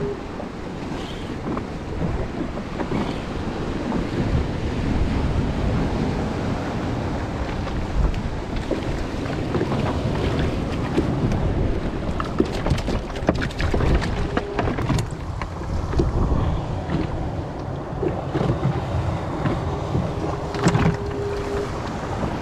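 Choppy sea surf splashing and sloshing around a jet ski, with wind buffeting the microphone. A run of small clicks and knocks comes about halfway through.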